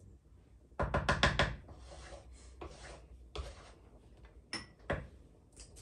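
Wooden spoon stirring and scraping in a cooking pot: a burst of rapid knocking strokes about a second in, then lighter scraping. Two sharp clinks come near the end, the first with a short ring.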